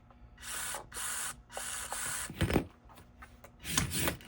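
Small combat robot's drive motors running in several short bursts as it is driven, with a knock about two and a half seconds in and more knocking near the end.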